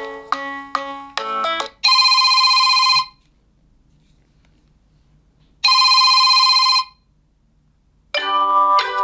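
Nokia 2.2 ringtones played one after another: a melody of short notes ends about two seconds in, then a telephone-style ring sounds twice, each ring about a second long with a pause of over two seconds between, and a new melody of short notes begins near the end.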